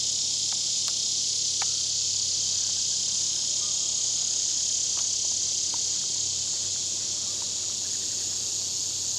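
Chorus of insects, a steady high-pitched drone that holds without a break, with a few faint ticks.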